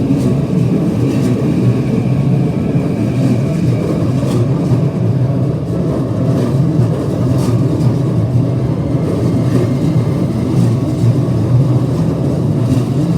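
Commuter train rolling slowly past close by: a steady, loud rumble with a faint whine in the first few seconds and a few sharp clicks later on.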